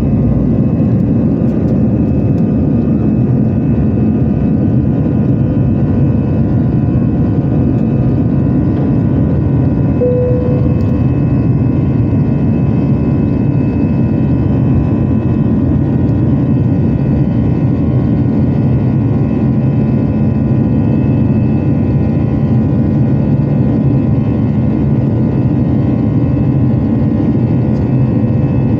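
Airbus A320's twin jet engines at climb power with airflow noise, heard inside the passenger cabin: a steady deep drone with faint steady whining tones above it. A brief single tone sounds about ten seconds in.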